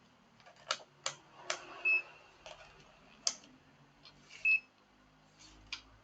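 Digital multimeter being set up for continuity testing: several sharp clicks, and two short high beeps from its continuity buzzer about two and a half seconds apart.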